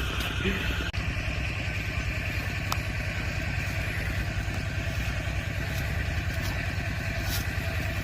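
Small engine running steadily at an even speed, with a rapid, even low pulse and a constant hiss above it.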